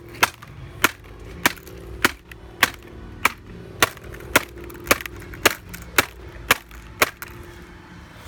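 Hammer striking a MacBook over and over in a steady rhythm, a little under two sharp blows a second, about a dozen in all, stopping about a second before the end.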